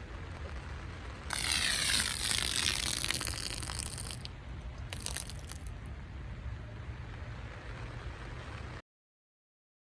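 A rasping, ratchet-like mechanical sound starts about a second in and lasts about three seconds, with a shorter burst a second later. It plays over a steady low rumble, and the sound cuts off abruptly near the end.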